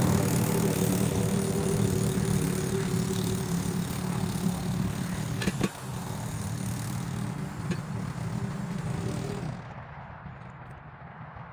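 Lawn mower engine running steadily, gradually getting quieter, with a sharp click about halfway through; its sound drops off abruptly near the end.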